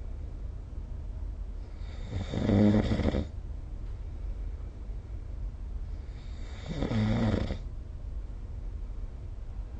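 A person snoring in sleep: two long snores about four and a half seconds apart, each lasting about a second and a half, with a low steady background between them.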